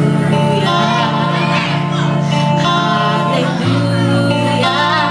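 A song playing: music with singing over steady, held bass notes.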